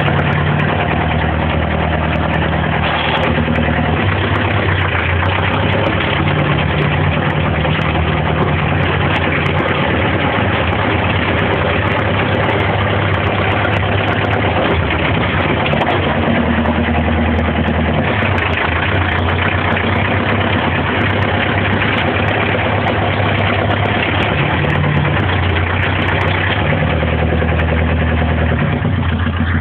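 International 434 tractor engine running steadily while the tractor is driven, with small rises and falls in engine speed.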